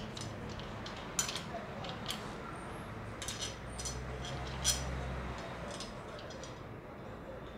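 Scattered light metallic clicks and clinks of a castor-wheel foot bar and its fixing bolt knocking against the fins of an oil-filled radiator as the foot is fitted.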